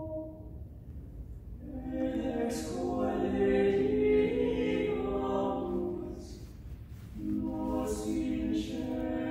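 A small unaccompanied choir of four voices singing a slow, sustained chordal phrase. The voices come in about two seconds in, swell, fade out around six seconds, and enter again with the next phrase about seven seconds in.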